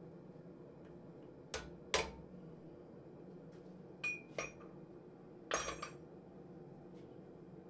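Blacksmith's hammer, tongs and steel tooling knocking on an anvil: two sharp metal strikes about half a second apart, then a ringing clink and a second clink about four seconds in, and a short rattling clatter of metal a little later.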